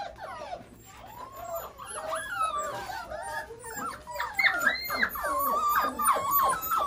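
Many Australian Shepherd puppies whining and yipping together, their high, wavering voices overlapping, growing louder from about two seconds in.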